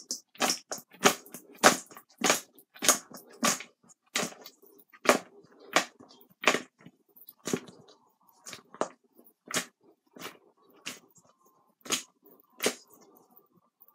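Crispy air-fried chicken wings being tossed in a bowl of sauce: a steady run of sharp clacks, about one and a half a second, thinning out in the second half.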